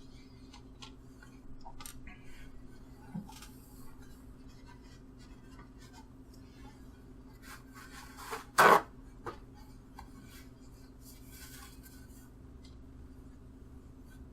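Small handling sounds of painting supplies: light clicks and rustling as a wet paintbrush is worked dry, with one louder knock a little past halfway. A faint steady hum runs underneath.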